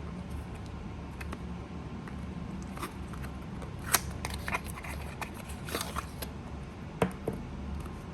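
Handling noises: a run of light clicks, taps and rustles as a small object is turned over in the hands, with two sharper clicks about four and seven seconds in, over a steady low hum.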